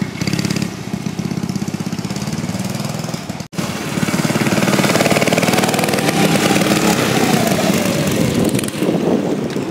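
Mini bike's small single-cylinder engine running under throttle as it is ridden around, its pitch rising and falling with engine speed. The sound cuts out for an instant about three and a half seconds in.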